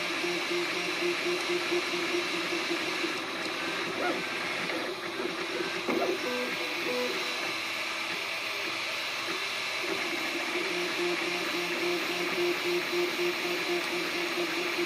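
3D printer running mid-print: its stepper motors give a pulsing hum as the print head moves, breaking into short shifting tones in the middle before settling back, over a steady hiss.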